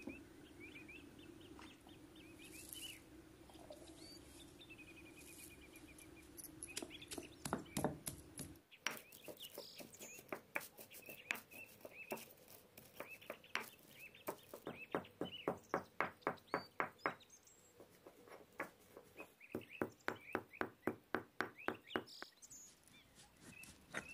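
Cumin and coriander seeds pounded with a pestle in a mortar: sharp, even knocks about three a second, in runs from about a third of the way in. Before the pounding, birds chirp over a low steady hum.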